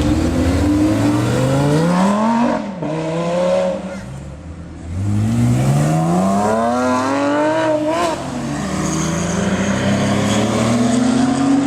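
High-performance car engine accelerating hard. Its pitch climbs steeply and drops sharply twice, at about 2.5 s and 8 s, as at upshifts, then holds high near the end.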